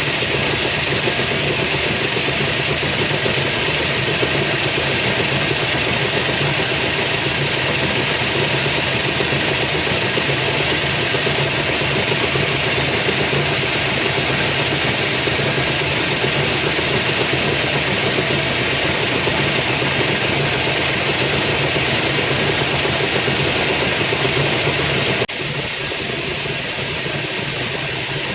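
A metal lathe running steadily under power while machining a part, with a constant high whine over the motor and drive noise. About 25 seconds in, the sound changes and drops slightly in level.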